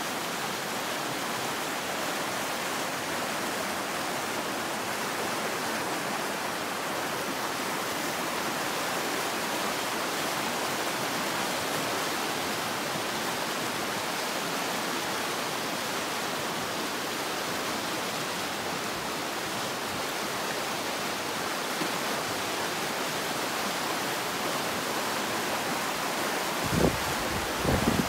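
Fast mountain river rushing through whitewater rapids, a steady full rush of water. A few low thumps sound near the end.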